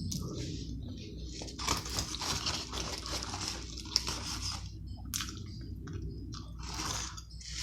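A person chewing and biting into a cheeseburger and fries close to the microphone: irregular wet, crunchy mouth sounds, busier about two seconds in and again near the end.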